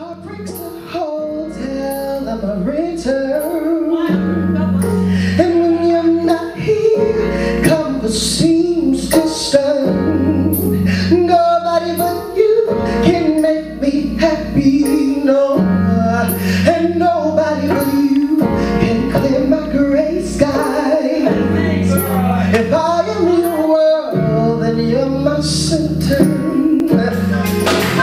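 A song with a woman singing over sustained bass chords.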